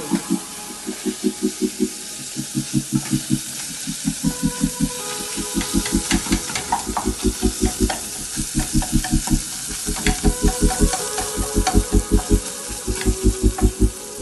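Food sizzling as it fries in an open pressure cooker pot, stirred with a wooden spatula that knocks against the pot in quick runs of about five strokes a second.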